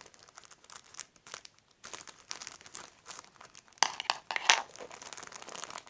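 Crinkling and rustling of a Lego City magazine's plastic wrapping being handled and opened: a run of small crackles, with two louder rustles near the middle.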